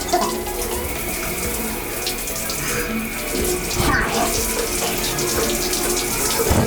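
Shower running, water spraying and splashing steadily.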